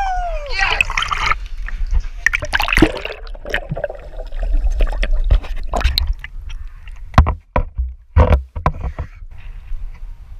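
Lake water sloshing and splashing right at a GoPro's microphone as a swimmer moves through the water, with a steady rumble and a few sharp knocks about two-thirds of the way in. A person's voice is heard briefly at the start.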